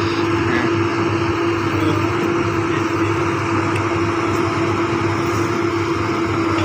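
Hydraulic excavator's diesel engine running steadily, a continuous drone with one steady held note over a low hum.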